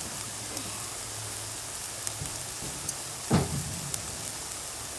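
Scrambled eggs with cheese sizzling in a frying pan on the stove: a steady hiss with scattered small pops. A brief louder bump comes about three seconds in.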